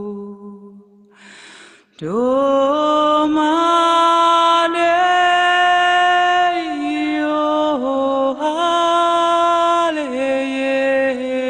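Slow music: a melody of long held notes that step and slide from one pitch to the next. The line drops away briefly about a second in, with a short hiss, then a new phrase comes in about two seconds in.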